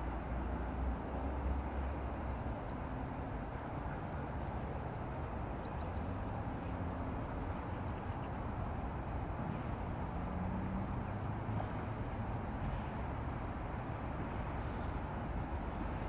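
Steady rushing of flowing river water, with a low rumble underneath. Two brief high bird chirps come about four and seven seconds in.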